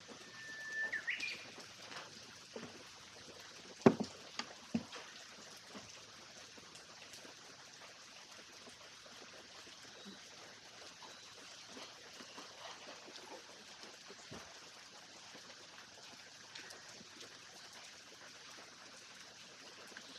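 Quiet background with a faint steady hiss. A short high tone near the start rises about a second in. A single sharp knock comes about four seconds in, with a softer one shortly after.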